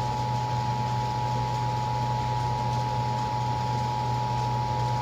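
Emergency Alert System two-tone attention signal: two steady tones sounded together as one continuous, unbroken alarm, over a low steady hum.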